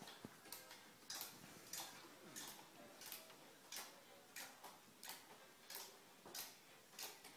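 Hand screwdriver driving a screw into a wooden stool frame: a short, faint click with each twist, evenly paced at about three every two seconds.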